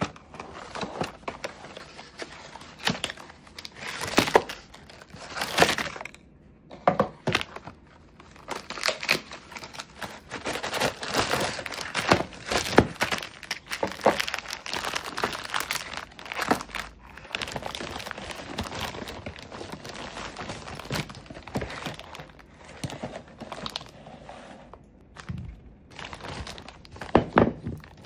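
Gift packaging being torn open and crumpled by hand: irregular rustling and tearing, with sharp knocks now and then as the items are handled.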